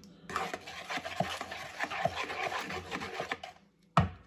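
Wooden spoon stirring seasoned buttermilk in a plastic mixing bowl, an uneven rubbing and scraping against the bowl with small ticks. The stirring stops about three and a half seconds in, and a sharp knock follows near the end.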